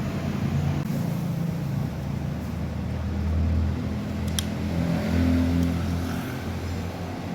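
A motor running steadily with a low hum that swells and eases a little, and a single sharp click about four seconds in.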